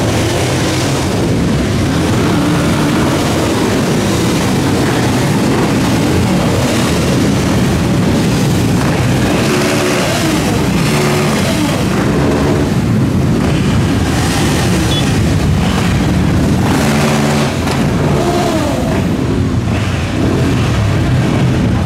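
Many motorcycle and scooter engines running together, loud and continuous, with engines revving up and down.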